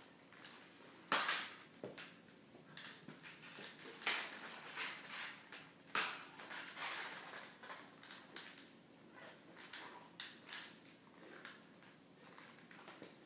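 Aluminium forearm crutch tips and metal HKAFO leg braces knocking and clinking on a hardwood floor during a slow braced walk with the legs dragged forward: a string of irregular knocks and metallic clinks, the loudest about a second in.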